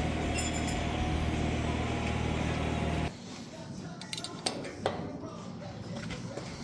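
A steady machine hum that cuts off suddenly about three seconds in, followed by scattered light metallic clinks and clicks.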